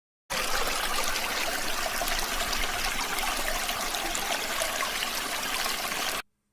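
Steady rushing, hissing noise like running water, starting suddenly and cutting off abruptly near the end.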